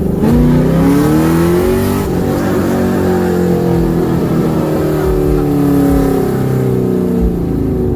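Straight-piped 2011 Camaro SS's 6.2-litre V8, with catless long-tube headers and the mufflers and resonators removed, heard loud from inside the cabin under hard acceleration. Its pitch climbs and eases in long sweeps as the revs change.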